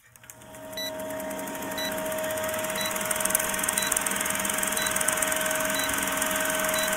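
Vintage film-projector sound effect: a steady fast mechanical clatter with a hum, fading in over the first couple of seconds, and a short beep once a second marking a countdown leader.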